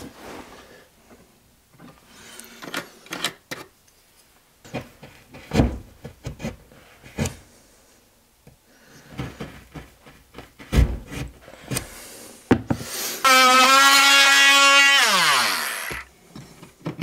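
Scrapes, clicks and taps of a socket box being marked out on a plasterboard wall, then about three seconds of a cordless power tool cutting the box opening in the plasterboard: a loud steady high whine whose pitch falls away as the tool winds down near the end.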